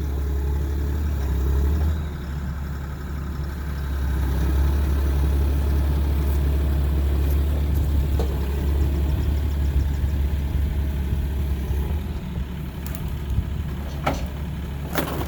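A machine's engine running steadily with a low, even rumble, with two sharp clicks or knocks near the end.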